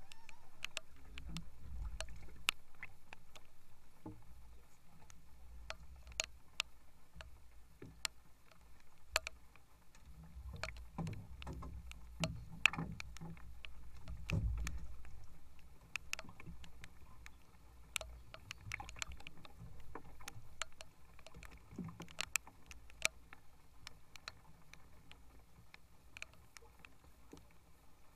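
Someone moving about in an aluminium jon boat while playing a fish. Low knocks and rumbles come from the hull, and scattered sharp ticks come at irregular intervals.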